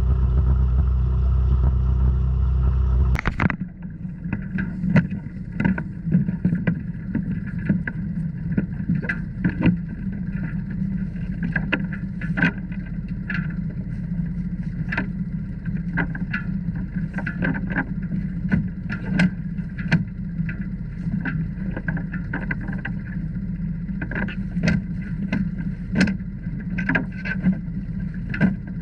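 Sounds aboard a Catalina 22 sailboat: a steady low hum with frequent short knocks and clanks. The hum changes abruptly about three seconds in.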